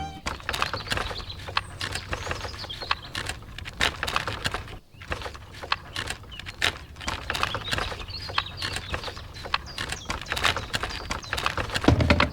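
Irregular light taps and clicks, close together, over a faint low hum, with a short pause about five seconds in.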